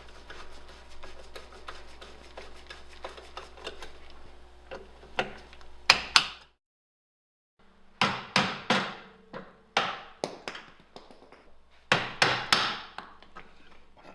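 A series of sharp hammer blows, struck singly and in quick pairs, each with a short ringing tail, over a faint background hum.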